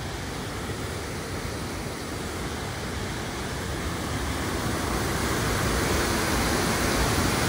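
Water rushing through the sluice gates of a river barrage, a steady churning rush that grows gradually louder.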